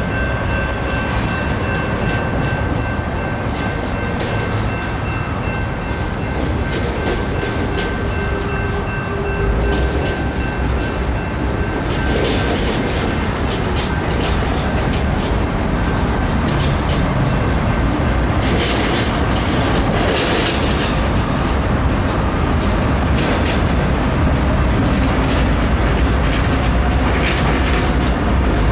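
Freight train cars rolling slowly past: a continuous rumble of steel wheels on rail, with irregular clicks and clanks as the wheels cross rail joints. A thin steady high whine sounds under it and stops about twelve seconds in.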